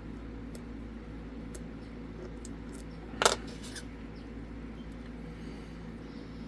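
Faint ticks of a lock pick working the pins of a Zeiss Ikon SK6 Sperrwelle lock cylinder, with one sharper metal click a little over three seconds in, over a steady low hum.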